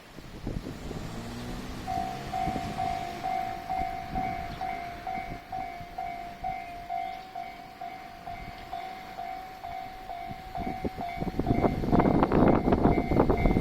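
A level-crossing warning bell starts about two seconds in and rings in a steady repeating pulse. Near the end a three-car 1200-series diesel railcar train reaches the crossing, and its diesel engines and wheels rumble and clatter loudly as it passes slowly over.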